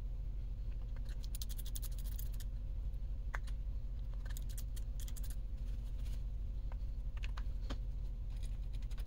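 Small plastic and metal clicks and rattles as Traxxas E-Revo 2.0 transmission gears and case halves are handled and fitted together: two quick clusters of clicks, then a few single taps. A steady low hum runs underneath.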